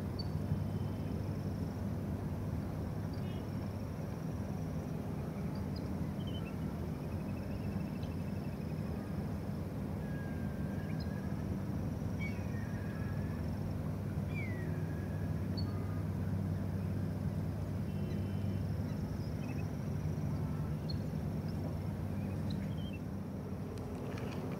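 Steady low engine hum in the background, with scattered short bird chirps and brief whistles over it.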